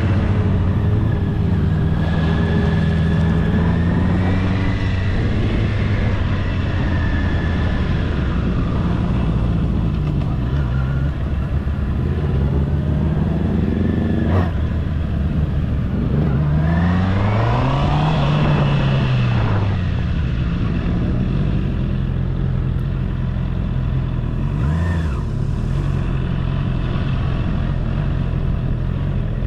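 Honda CB650R's inline-four engine under way at low speed, its revs rising and falling with the throttle. About two-thirds through it revs up and falls back, and a short throttle blip comes near the end.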